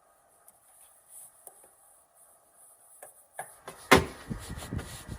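Plastic tail light assembly being pushed and knocked into place on the SUV body: quiet at first, then a sharp click about four seconds in, followed by a quick run of dull knocks.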